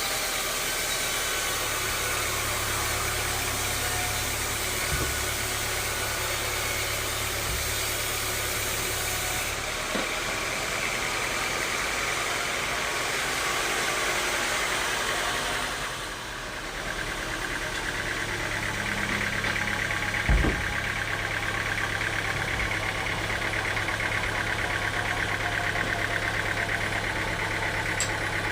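Sawmill machinery running steadily: an engine hum under a dense noisy whir. The whir dips and changes about two-thirds of the way through, and there is a single knock shortly after.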